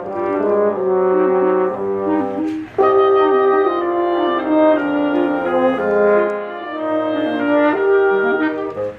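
Brass ensemble playing held chords, with a louder entrance about three seconds in.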